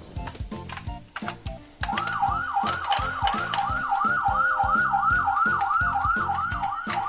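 Toy emergency vehicle's electronic siren starting about two seconds in: a fast yelp of quickly repeating rising sweeps, about three a second, over background music with a steady beat.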